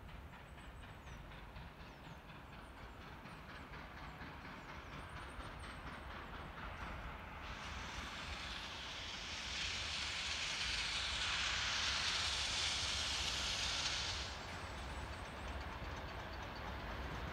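Soviet L-class steam locomotive approaching with its train, its low rumble slowly growing louder. About seven seconds in, a long, loud hiss of steam lasting roughly seven seconds starts and cuts off abruptly.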